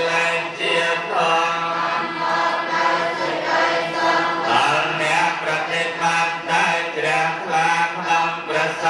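Cambodian Buddhist monks chanting together into a microphone: a steady, droning group chant held on sustained pitches, the blessing chanted at a midday meal offering.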